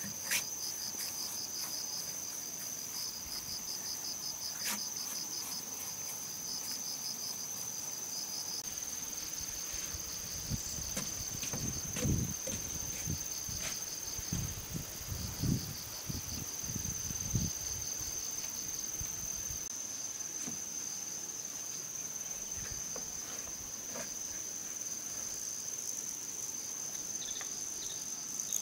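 Insects calling: one steady high whine with a fast pulsing trill just below it, going on throughout. A few low thumps come in the middle, and there are scattered sharp clicks.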